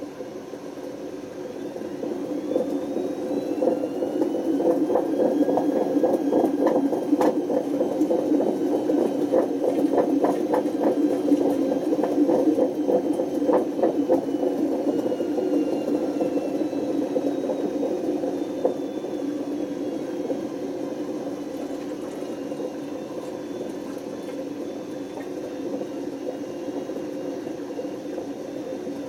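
Panasonic NA127VB6 washing machine with worn-out drum bearings spinning up and back down: a loud rumble and hum with rattling knocks around its fastest point, and a faint whine that rises and then falls. The rumble and knocking are the sign of the failed bearings.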